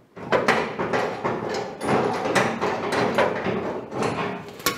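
A metal clamp being worked loose and pulled off the truck's front sheet metal: an irregular run of scrapes, clanks and rattles, with a sharp click near the end.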